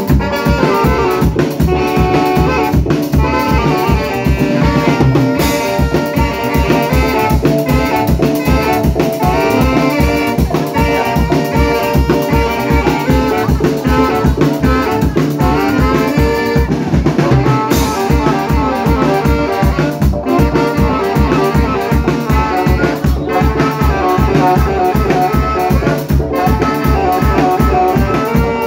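Brass dance band playing: trumpets and saxophone carrying the tune over a drum kit keeping a steady beat.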